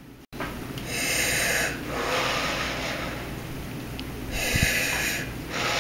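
Darth Vader-style heavy, hissing breathing: two slow breath cycles, each a short bright hiss followed by a longer, duller one.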